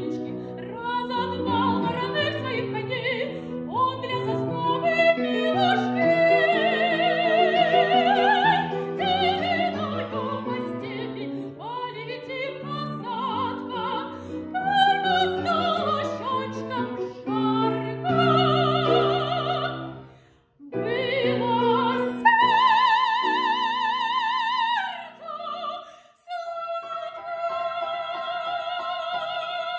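Operatic female voice singing a Russian folk song with wide vibrato, accompanied by a grand piano. The sound breaks off briefly twice, and the voice holds a long note in the last few seconds.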